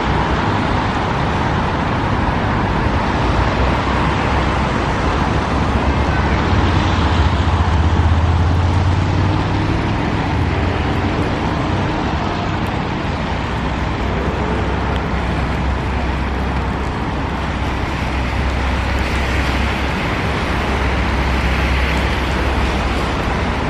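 Steady road traffic noise: a continuous wash of passing cars and engines, with a deeper engine rumble swelling about eight seconds in as a heavier vehicle goes by.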